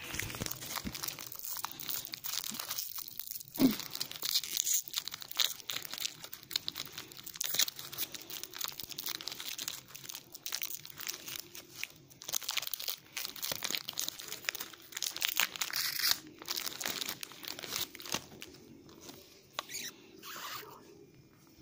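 Trading-card pack wrapper crinkling and tearing as it is opened by hand, with irregular crackling and a sharp crack about three and a half seconds in; the handling quietens near the end.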